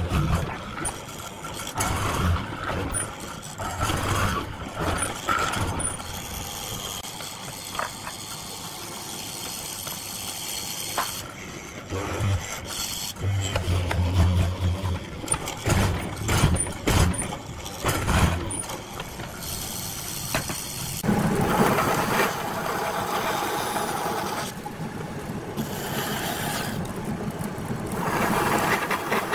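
Mortising machine cutting a slot in a wooden chair leg with a drill bit, the bit grinding and rasping through the wood in uneven bursts. About three-quarters of the way through it gives way to a steadier machine sound: a bandsaw cutting.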